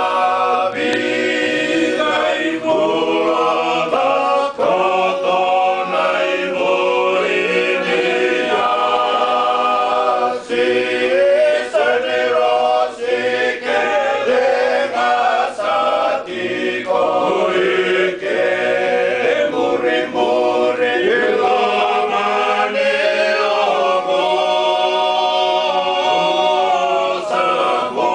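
A small group of men singing a Fijian song together, unaccompanied, several voices at once with no pause.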